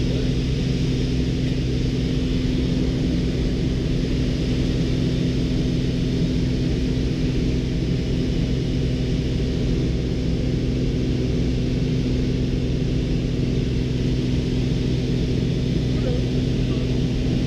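Piston engine and propeller of a high-wing light aircraft, heard from inside the cabin: a steady, even drone in flight with a constant low hum and rushing air noise.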